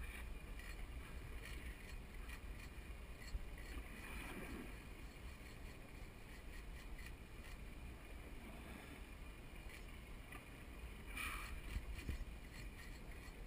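Steady low rush of wind and water against a small boat's hull at sea, fairly quiet.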